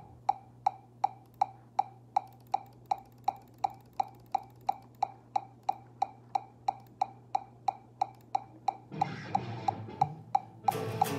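Metronome click ticking steadily at about two and a half clicks a second over a low steady amplifier hum while the electric guitar is silent. Near the end the clicks come faster and electric guitar playing starts again.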